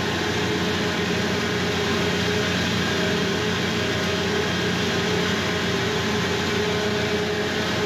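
Ship's engine-room machinery running, a loud steady drone with a constant low hum, among it the heavy fuel oil purifier and its pumps in operation.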